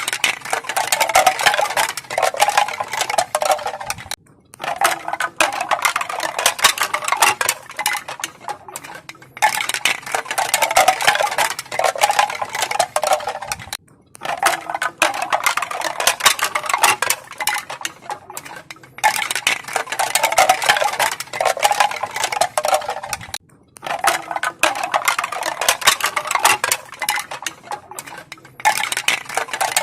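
Pieces of bamboo clacking together in a dense, rapid clatter of crisp clicks, coming in bouts of about four to five seconds with short pauses between them.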